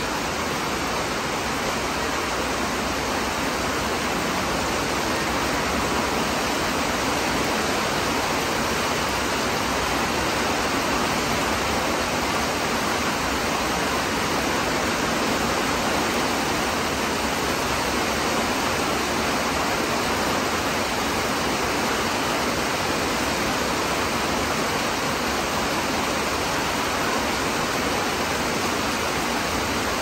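Heavy rain falling: a steady, dense hiss with no letup.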